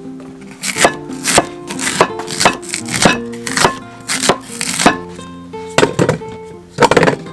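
Knife chopping on a cutting board, a stroke about every half second, then a short pause and a few more strokes near the end. Background music plays underneath.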